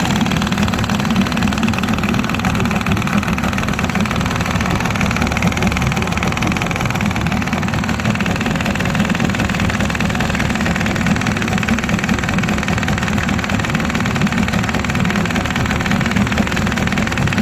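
Tomos T18 two-stroke outboard motor running steadily, with a strange noise in its running that the owner wants explained.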